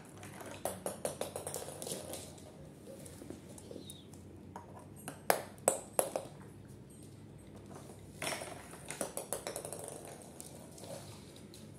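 Small plastic balls clattering down a plastic toy tower's spiral ramp and bouncing on a wooden floor. Runs of quick light clicks come at the start and again near the end, with three loud sharp knocks about halfway through.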